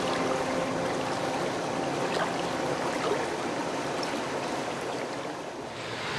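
Shallow river water flowing and rippling past rocks in a steady, even rush.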